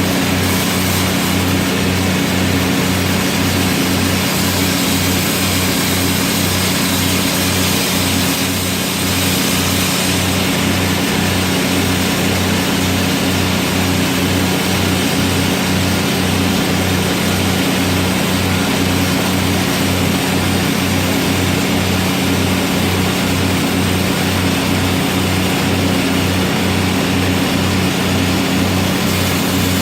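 Stick welding a root bead on 6-inch pipe with a 1/8-inch 6010 (Fleetweld 5P) electrode: a steady arc crackle and hiss over a low, pulsing hum.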